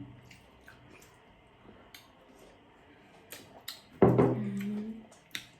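Quiet eating: scattered light clicks and taps, like a spoon on a plate, over soft chewing. About four seconds in a voice gives a short wordless sound lasting about a second.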